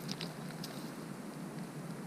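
Steady hiss of rain and wind, with a few faint small clicks near the start.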